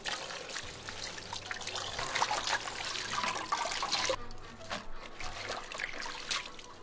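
Tap water running into a sink as lettuce is rinsed under it. The water shuts off about four seconds in, leaving a few light clicks and knocks.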